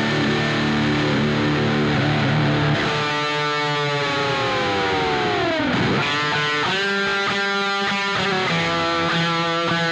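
Rock music with distorted electric guitar; about three seconds in the guitar's pitch slides steadily down in a long dive, then chords resume.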